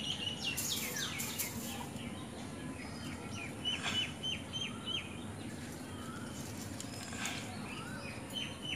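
Small birds chirping: short high chirps, with a quick run of about five a second near the middle. A few brief scratchy noises come about a second in.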